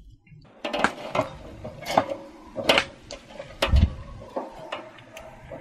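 Wire grill rack clinking and rattling against a metal basin as a marinated whole chicken is handled and laid on it, a string of sharp metallic clicks with one dull thump a little before the four-second mark.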